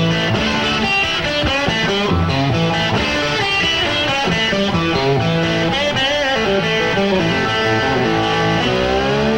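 Electric guitar played live in a rock song intro, a lead line of notes that bend and slide in pitch, with a wide bend near the end.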